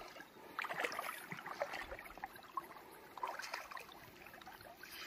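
Faint, irregular splashing and sloshing of shallow stream water in short, uneven bursts.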